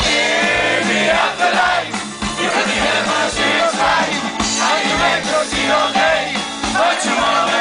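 A live swing band with electric guitars and a drum kit playing over a steady beat.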